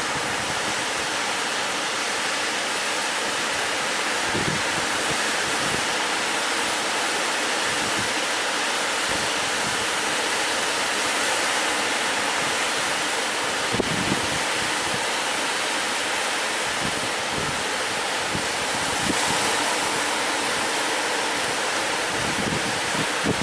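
Sea surf breaking and washing in close by: a steady rush of water, with a few brief low thumps.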